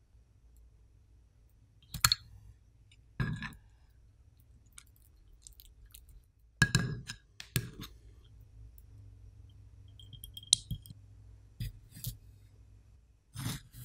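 Metal tongs tapping and clinking against ceramic bowls as a pork cutlet is turned in flour, dipped in beaten egg and laid into panko crumbs: a handful of separate sharp clicks and soft pats, one of them with a brief ring.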